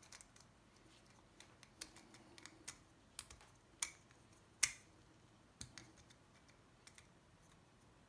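Faint, irregular clicks and small knocks of hard plastic parts as a black plastic insert is pushed and wiggled against a BMW iDrive rotary knob, the loudest click about four and a half seconds in. The insert is not snapping into place.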